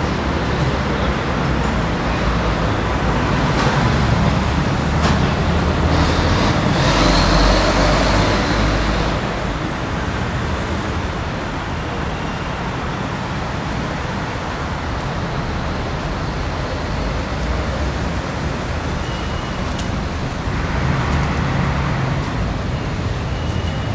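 Steady city street traffic noise, with a vehicle passing close and growing louder for a few seconds about seven seconds in, and a smaller swell of traffic near the end.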